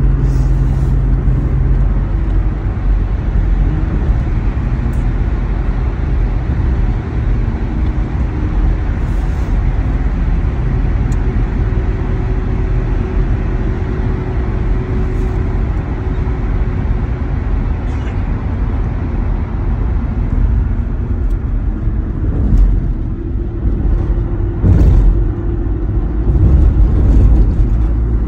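Steady road and engine noise heard from inside a moving van's cabin: a continuous low rumble of tyres and engine at cruising speed. A few louder thumps come in the last several seconds.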